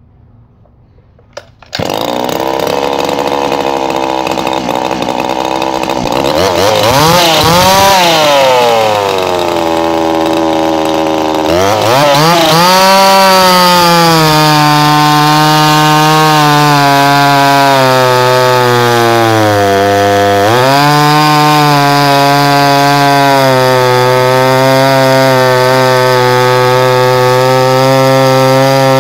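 Homdox two-stroke chainsaw with a ported cylinder and its muffler baffle removed, starting about two seconds in. It revs up and drops back toward idle, then is held at high revs with a brief dip about twenty seconds in, and is cutting into a log round near the end. With the high-speed mixture screw bottomed out, the owner thinks it still runs a little rich.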